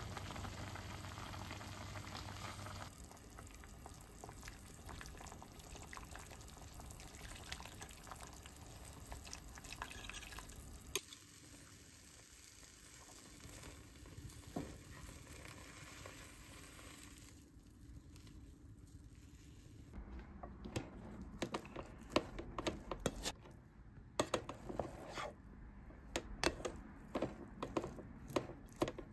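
A run of close-up cooking sounds: liquid in a pot of sliced onions, then egg frying with a light hiss in a square tamagoyaki pan, then a rice paddle scraping and turning cooked multigrain rice in a rice cooker's inner pot. The paddle makes many short scrapes and knocks through the last third.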